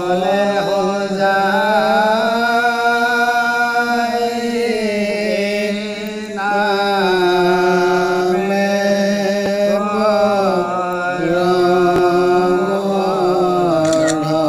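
A man chanting Assamese devotional naam (naam prasanga) in long, drawn-out held notes, the pitch sliding slowly between them. The phrase breaks briefly about six seconds in and again near the end.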